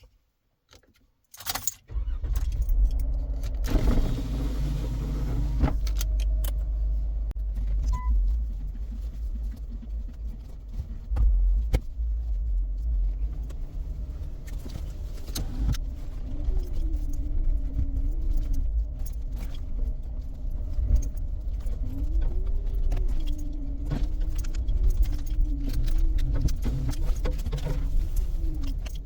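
Stock Jeep Wrangler JK's V6 engine and tyres rumbling steadily as it drives off, heard from inside the cabin, with frequent small rattles and clicks in the cab. The rumble starts about two seconds in, and from about halfway through a pitched tone wavers up and down.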